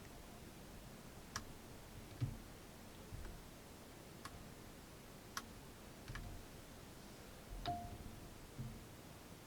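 Faint, irregular clicks and light knocks of a microphone and its accessories being handled, about eight in all, the loudest about two seconds in.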